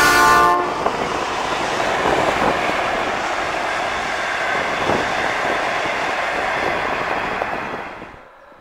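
V/Line N-class diesel-electric locomotive N451 and its passenger carriages running past, a steady rush of wheels on rail with clickety-clack. A brief loud tone opens the sound, and it fades out near the end.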